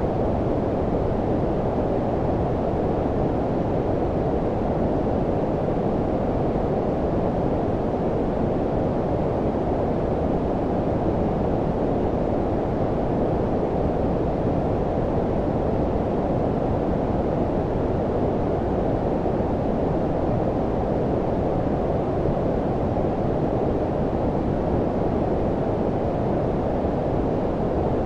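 Steady low-frequency synthetic noise, a deep, warm brown-noise hiss with its energy below about 1 kHz and little above 2 kHz, unchanging throughout.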